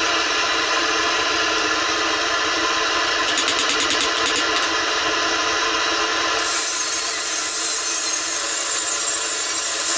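Propane torch flame blowing steadily into a small firebrick forge with a continuous rushing noise. A quick run of clicks comes about three seconds in, and a sharper, higher hiss joins at about six and a half seconds.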